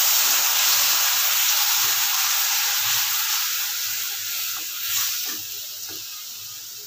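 Tomato purée sizzling loudly in a hot kadai of fried onion masala, just after being poured in; the hiss slowly dies down as it is stirred with a wooden spatula, with a few light spatula scrapes about five seconds in.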